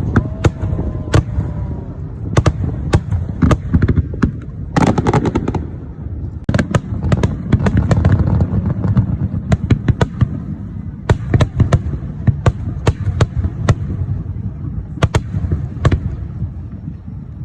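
Fireworks display: a continuous low rumble of shell bursts overlaid with many sharp crackling reports, with a dense cluster of cracks about five seconds in.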